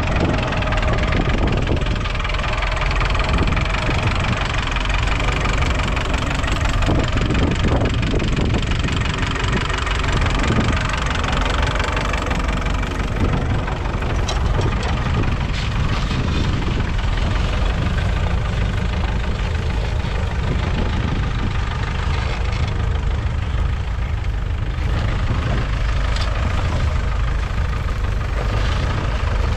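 Ferguson TEF20's 2.1-litre four-cylinder diesel engine running steadily under a mounted plough, with a few brief clicks part-way through.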